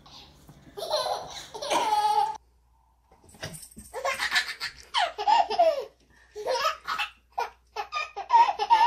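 Babies laughing in repeated short bursts of giggles. The sound breaks off suddenly about two and a half seconds in, and a second baby's laughter starts a second later.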